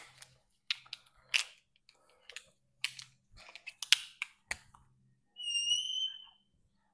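Marker writing on a whiteboard: a run of short scratchy strokes, then about five seconds in a high squeak lasting about a second as the marker is drawn along in a long line.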